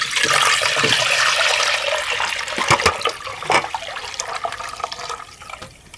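Chicken broth poured into a cooking pot: a steady rush of liquid for about two and a half seconds, then tapering to trickles with a few light knocks.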